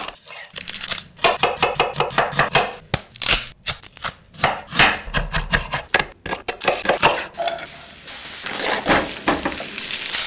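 Kitchen knife chopping a shallot and spring onions on a wooden cutting board, in quick, irregular strikes against the board. About eight seconds in, the chopping gives way to a steady sizzle of rice frying in a pan.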